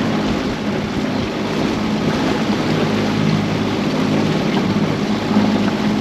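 Small boat's outboard motor running steadily at trolling speed, with a steady hiss of wind and water over it.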